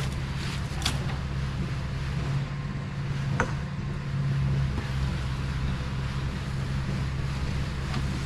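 Concrete truck engine running steadily at a constant speed, with a couple of brief sharp clicks.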